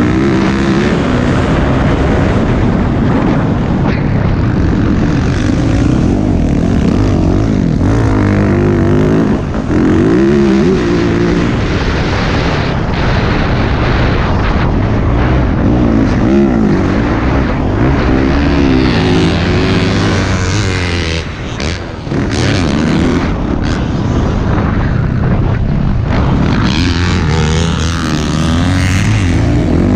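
Dirt bike engine under hard riding, revving up and dropping back again and again through shifts and corners, with wind noise. The throttle briefly closes about nine seconds in and again around twenty-one seconds.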